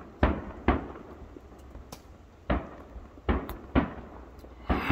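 Aerial fireworks shells bursting in the sky: about six sharp booms, unevenly spaced, each dying away quickly.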